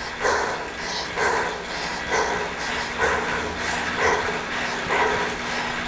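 Heavy, rhythmic breathing of a rider working hard on an indoor bike, about one breath a second, close to a headset microphone.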